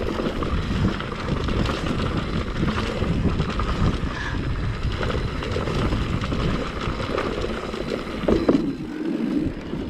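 Mountain bike riding down a rocky trail: the tyres rolling and crunching over rock and gravel, the bike rattling over the bumps, with wind buffeting the microphone.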